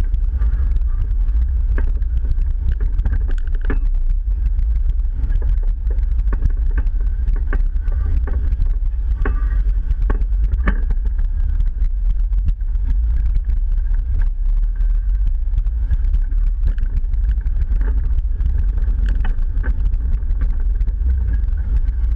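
A Jeep engine rumbling low and steady as it crawls at walking pace over a rocky trail, with scattered knocks and clunks from the tyres, body and suspension working over the rocks. The sound is picked up by a camera mounted on the hood.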